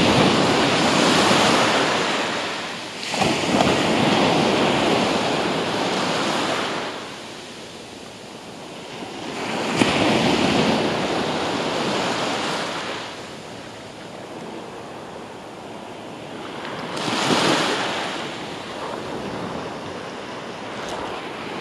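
Small surf waves breaking and washing up over the sand at the water's edge, four times, each swelling up and fading away over a few seconds.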